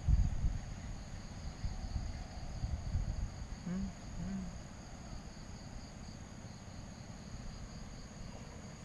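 Insects chirring steadily in two high, even bands. Low rustles and thumps sound in the first few seconds, and two short low tones come about four seconds in.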